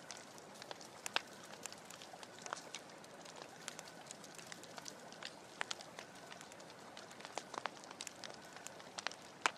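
Wood fire crackling: irregular sharp pops and snaps over a soft steady hiss.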